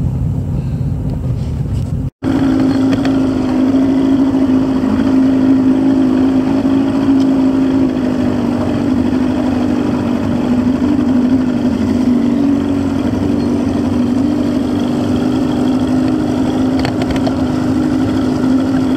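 Low vehicle rumble for about two seconds, then an outboard boat motor running steadily at speed, a constant engine drone with water and wind noise.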